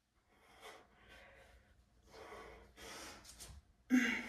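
A man breathing hard from exertion in a string of noisy breaths about a second apart, ending in a louder voiced exhale near the end.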